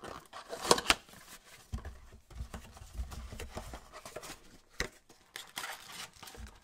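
Cardboard blaster box of trading cards being opened by gloved hands and its packs pulled out: rustling and tearing of cardboard and pack wrappers with sharp clicks, loudest about a second in, and a few dull knocks against the table.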